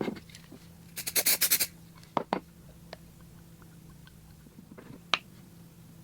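Light clatter of objects handled on a work surface: a quick rattle of about eight clicks about a second in, two knocks shortly after, and one sharper click near the end, over a faint low steady hum.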